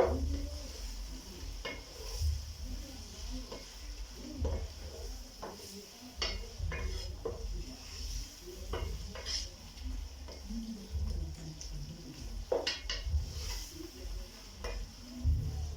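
Wooden cooking spoon stirring tomatoes and onions frying in a pot: irregular knocks and scrapes against the pot over a steady sizzle as the tomatoes cook down.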